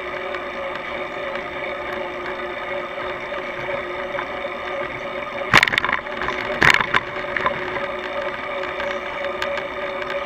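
Steady riding noise picked up by a camera mounted on a moving bicycle, with a steady whine running through it. Two sharp knocks come about a second apart near the middle, as from jolts over bumps.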